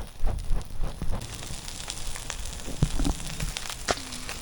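Campfire crackling and popping, with a fish head sizzling on the grill over the coals. There are a few low thumps near the start.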